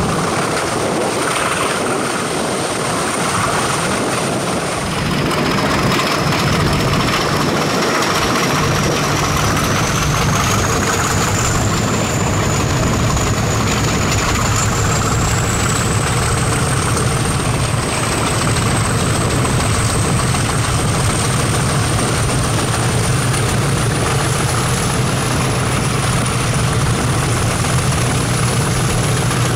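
English Electric 16-cylinder diesel of Class 50 locomotive 50035 working hard at the head of a passenger train, heard from a carriage window: a steady low engine drone with a thin high whistle that climbs slowly in pitch, over wind and running noise.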